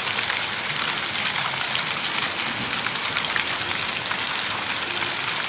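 Rain falling steadily, an even hiss with fine drop ticks, with faint voices in the background.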